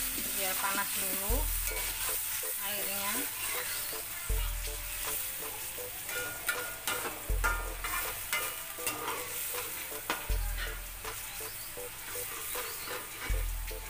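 Metal spatula stirring and scraping in a metal wok of fried spice paste with water just added, the liquid sizzling and the spatula clicking against the pan. Faint background music with a low beat about every three seconds.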